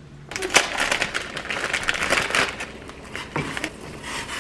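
Crinkling plastic instant-noodle packaging and the crunch of the dry ramen block being handled. It is a dense run of crackles for about two seconds, then lighter.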